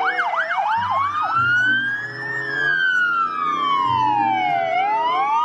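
Several police car sirens sounding at once. One starts on a fast yelp, about three sweeps a second, and within the first second slows into a long rising and falling wail, while other sirens wail over it with their pitches crossing. Engines hum beneath.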